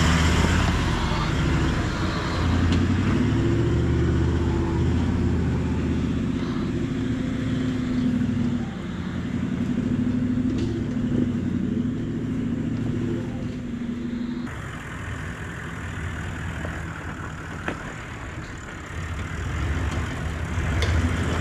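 Four-wheel-drive ute engines crawling up a rough dirt track at low speed, the revs rising and falling as the vehicle works over the ruts. About two-thirds of the way through the sound cuts abruptly to a quieter, lower engine note.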